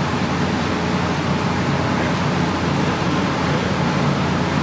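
Steady rushing noise with a low mechanical hum underneath, unchanging throughout.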